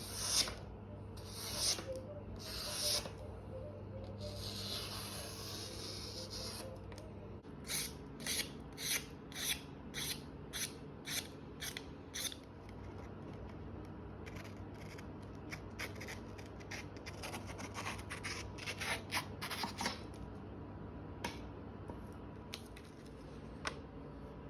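A freshly sharpened knife slicing through paper as a sharpness test: a series of short cutting strokes, including one longer slice, then a run of about two cuts a second, then fainter, quicker ones. A low steady hum sits underneath.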